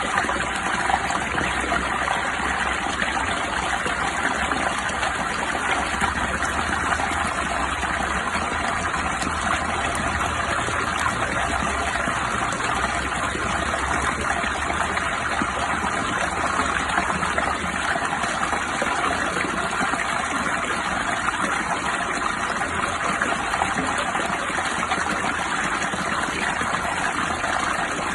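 Steady, even rushing of water with no breaks or distinct events.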